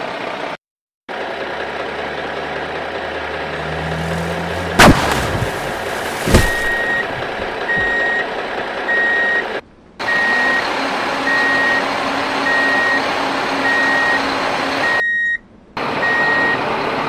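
Heavy truck sound effect: an engine running with a rising low drone, two sharp bangs about five and six and a half seconds in, then a reversing alarm beeping at a steady pace to the end.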